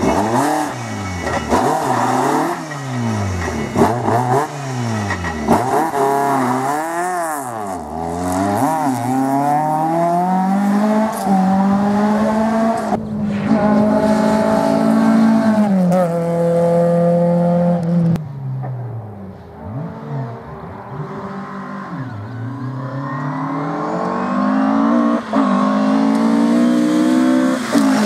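Rally car engines driven hard on a closed stage, the engine note climbing and dropping again and again through quick gear changes and lifts, then held high at full throttle and climbing again, with some tyre squeal.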